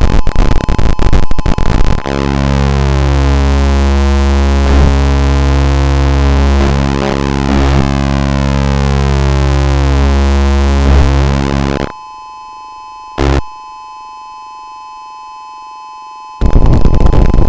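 Harsh, loud synthesized noise gives way to a dense clash of electronic tones, some held and some sliding in pitch. About twelve seconds in it drops to a quieter steady tone, broken once by a short burst, and loud static noise cuts back in near the end.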